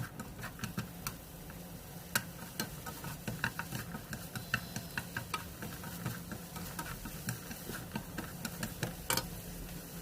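A spatula stirring onions in a wok, giving irregular clicks and scrapes of metal against the pan, over a steady low hum.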